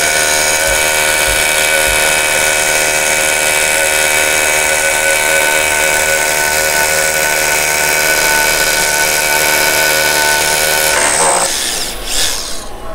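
Hilti TE 6-A22 cordless rotary hammer drilling into solid concrete, running steadily at full speed, then stopping about two seconds before the end.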